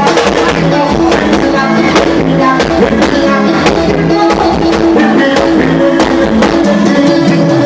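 Loud music with a steady beat and held pitched notes.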